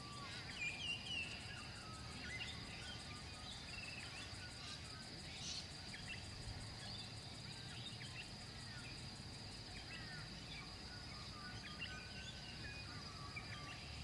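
Outdoor bush ambience. Insects keep up a steady high-pitched trill, many short bird chirps and whistles come and go over it, and a low rumble runs underneath.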